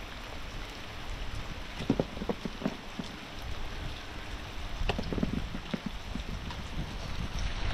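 Steady rain with wind rumbling on the microphone, and a few scattered knocks and taps, a small cluster of them about five seconds in.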